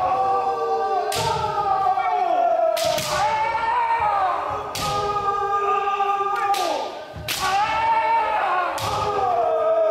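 Many kendoka shouting kiai at once: long, overlapping cries that fall in pitch. Sharp cracks of bamboo shinai striking armour cut in every second or two.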